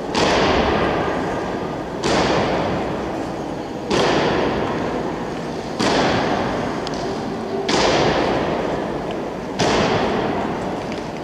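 Guards' boots stamping on a stone floor in a slow ceremonial march, a loud stamp about every two seconds, six in all. Each stamp rings on in the hall's long echo.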